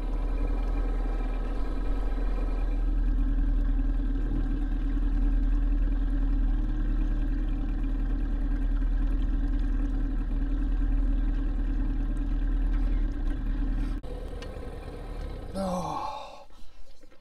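Boat's outboard motor running steadily as the boat moves across the water, cutting off about 14 seconds in.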